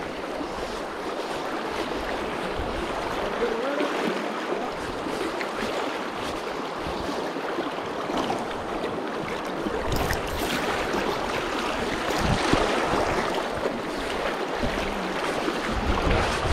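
Fast, shallow river current rushing steadily close to the microphone. Low rumbles of wind on the microphone come now and then, most around two-thirds of the way through.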